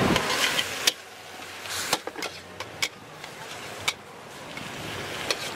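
Metal wok spatula scraping and clanking against a steel wok as squid and vegetables are stir-fried, giving sharp clinks at irregular intervals, about six in all. A loud hiss of frying fills the first second, then drops away and slowly builds again toward the end.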